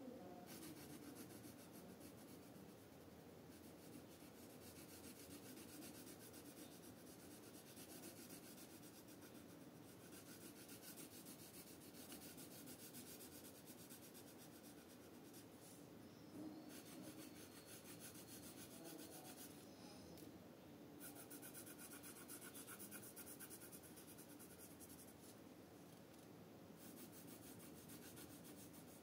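Coloured pencil shading on paper: faint, rapid back-and-forth scratching strokes, broken by short pauses every few seconds.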